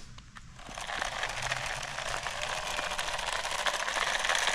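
Toy remote-control F1 car driving, its small electric motor and tyres giving a steady gritty whirr with fine crackling. It sets in under a second in and grows louder as the car comes closer.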